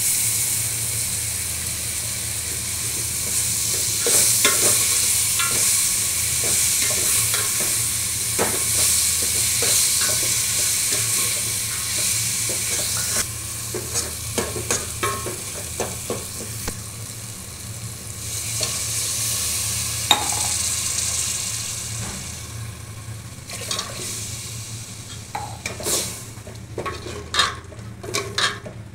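Tomatoes, green chillies and masala sizzling in hot oil in a metal pot while a steel ladle stirs and scrapes through them, with frequent clicks. Near the end the sizzling dies down and the ladle clinks and scrapes against the pot.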